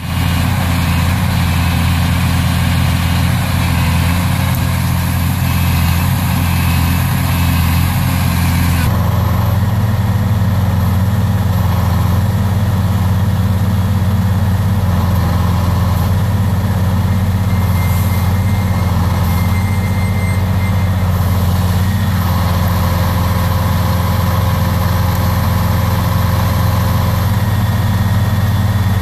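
Heavy diesel engine running steadily at a constant speed, its tone shifting about nine seconds in.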